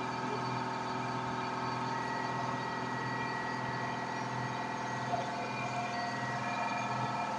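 Diode laser engraver running: the small cooling fan on the laser module and the gantry's stepper motors give a steady hum and whine while the head engraves wood. A higher whine comes in about two seconds in and fades out near the end.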